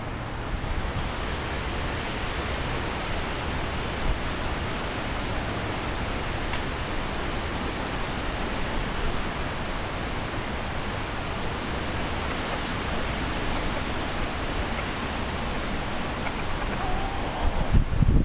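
Wind: a steady, even hiss, with gusts buffeting the microphone in low rumbles near the end.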